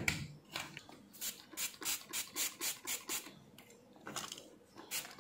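Brush scrubbing a circuit board wet with cleaning solvent, in quick scratchy strokes about four a second, pausing, then a few more strokes near the end: cleaning flux, oxide and carbon residue off freshly soldered joints.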